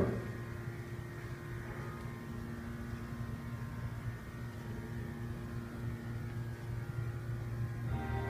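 Hushed room tone with a steady low electrical hum. Music with held notes starts near the end.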